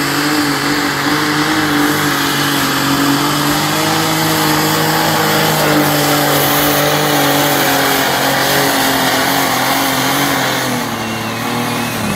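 Loud engine of a competition pulling tractor running flat out under heavy load as it drags a weight-transfer sled down the track. Its note holds steady with small wavers and sags slightly near the end.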